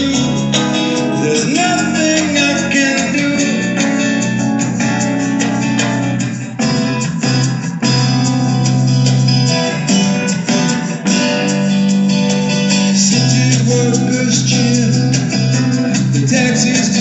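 Live band music: a song played on acoustic guitar and electric keyboard.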